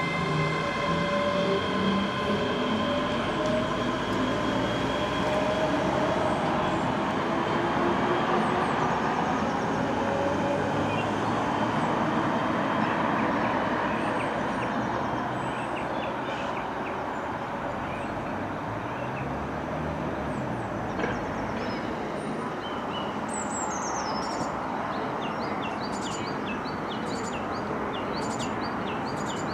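ScotRail Class 385 electric multiple unit pulling away, its traction motors giving a whine that slowly rises in pitch as it draws off and fades into a steady rail rumble. Birds chirp over the last several seconds.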